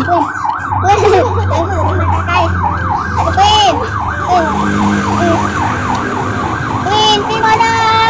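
A siren whose pitch rises and falls rapidly, about three times a second, at an even level throughout. A voice calls out briefly in the middle and again near the end.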